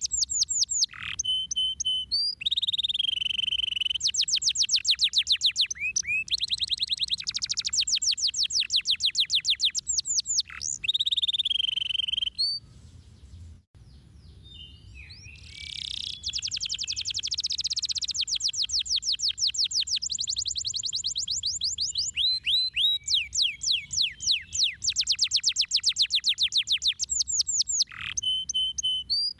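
Domestic canary singing: long rolling trills of rapidly repeated sweeping notes, about ten a second, switching between phrases of different pitch. It stops for about three seconds near the middle, then starts again with a long trill.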